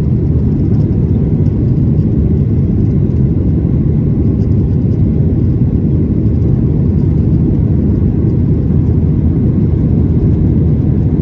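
Jet airliner cabin noise during the climb after takeoff: a steady low rumble of the engines and airflow, heard from a window seat.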